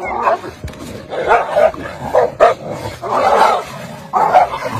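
Two dogs fighting, snarling and barking in a string of loud, rough bursts.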